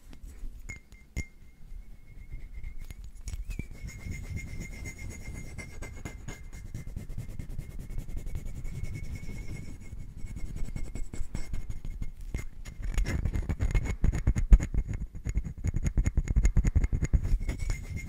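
Fingernails tapping and scratching rapidly on small glass bottles held right at the microphone, with a dense stream of light clicks. The handling grows heavier and fuller in the last few seconds.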